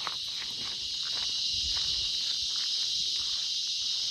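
Steady high-pitched insect chorus, one unbroken buzz, with faint scattered clicks and knocks beneath it.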